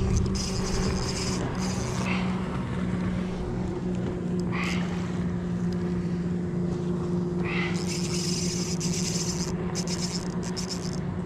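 Steady drone of a motorboat engine running on the water, one constant pitch. A few brief hissing bursts come through it, about a second in and again near the end.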